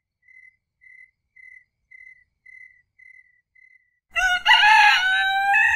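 Faint, evenly spaced high chirps, about two a second, then a little after four seconds a rooster crows loudly.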